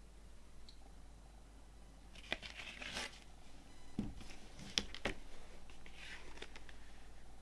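A cardboard LP record jacket being handled and turned over. It brushes and rustles against the hand and table. Near the middle come a dull knock and a few sharp taps as its edge meets the wooden tabletop.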